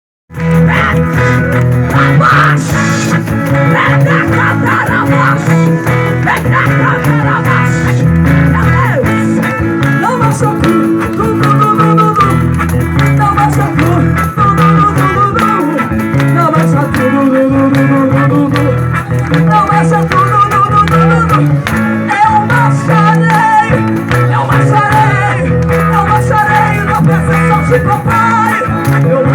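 Loud music with guitar and a steady bass line, with what may be a singing voice.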